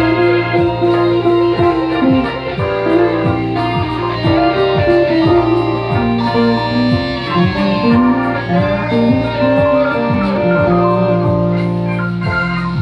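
Music with a guitar playing over a steady low bass note.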